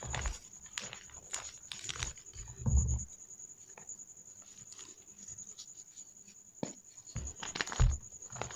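Gym chalk balls being crushed by hand, crunching and crumbling in irregular crackles, with heavier dull squeezes a few seconds in and again near the end and a quieter stretch between. A faint steady high whine runs underneath.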